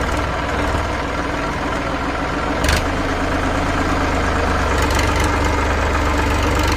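Massey Ferguson 7250 DI tractor's three-cylinder diesel engine running steadily while the tractor is stuck in mud. A single sharp knock comes about two and a half seconds in, after which the low engine note gets louder.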